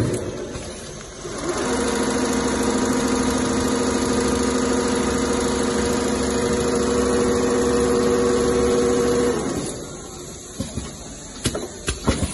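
Richpeace two-head CNC leather sewing machine running as it stitches a diamond quilting pattern: a steady mechanical hum with a constant tone. The hum sets in about a second and a half in and drops away about nine and a half seconds in, leaving a quieter run with a few sharp clicks near the end.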